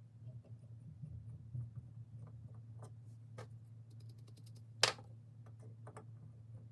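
Scattered light clicks and small knocks from hand tools and a small workpiece being handled while a screw hole is tapped, with one sharper clack about five seconds in, over a low steady hum.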